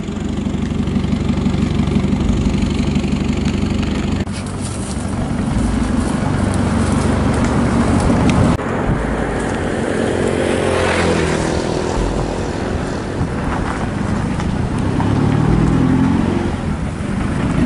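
Motor vehicle engines running and revving, their pitch rising and falling. The sound changes abruptly about four and eight and a half seconds in.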